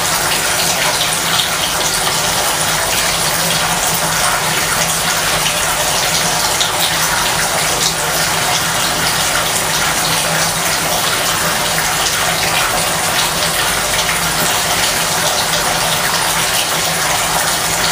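Bathtub faucet running steadily, a stream of water pouring into the tub.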